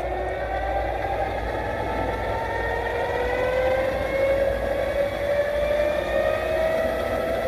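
Inertia starter on a Boeing Stearman PT-17 being hand-cranked: its flywheel whines as it spins up, the pitch rising steadily.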